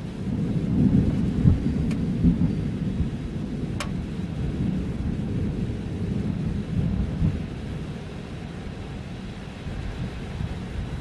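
Thunder rolling in a low rumble, strongest in the first three seconds and dying away over the following seconds.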